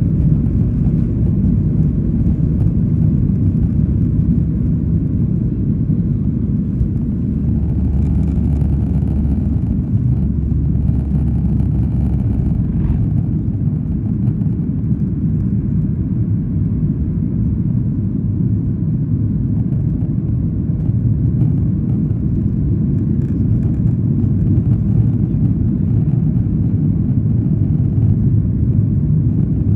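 Steady, loud rumble of a Boeing 737-800's CFM56-7B turbofans at takeoff thrust, heard from inside the cabin over the wing during the takeoff and initial climb. About a third of the way in, a heavier low rumble lasts a few seconds and stops with a short knock.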